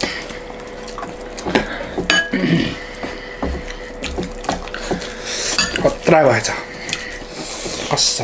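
A metal ladle clinking against a glass serving bowl and a steel plate as curry is spooned out, with one clear ringing clink about two seconds in, over the soft sounds of hands mixing rice on steel plates and eating.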